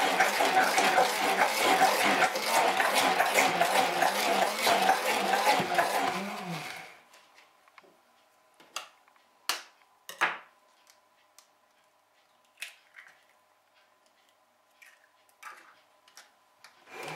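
Hand-held stick blender running steadily in a tall plastic beaker, beating eggs into a chocolate-butter mixture. It switches off about seven seconds in. A few light clicks and knocks follow.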